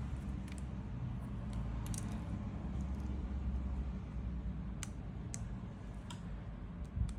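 Five or six small, sharp clicks and taps of phone flex-cable connectors being pressed onto a smartphone motherboard, with a low steady hum underneath.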